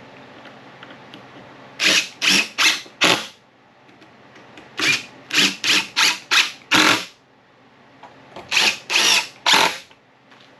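Cordless drill run against a pine board in short trigger bursts: three quick groups of about four to six pulses each, separated by short pauses.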